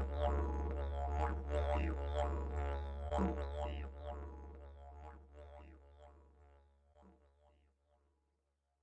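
Meditation music: a low, steady drone with a pulsing pattern over it, fading out to silence about eight seconds in.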